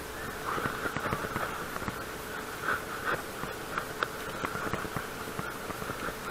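Fishing reel being cranked: a steady whir from the reel's gears with many small irregular clicks.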